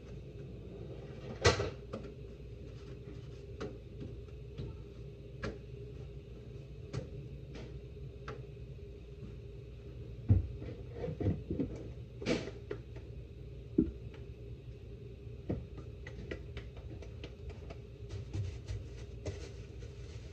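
Irregular knocks and clicks of things being handled and set down during corn tortilla making, over a steady low hum. Two sharper knocks stand out, about a second and a half in and about twelve seconds in, and the clicks come thicker near the end.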